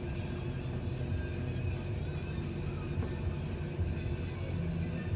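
A fishing boat's engine running steadily at low speed, a continuous low hum with no break.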